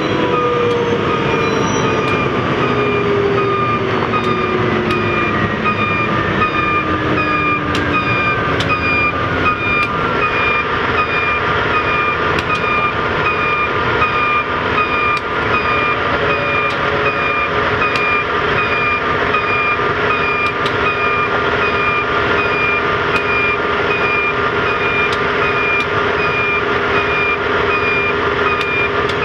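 Backup alarm on rail work equipment beeping steadily at an even pace, over the rumble of a slow-moving maintenance-of-way work train. A lower tone glides down in pitch over the first few seconds and then holds steady.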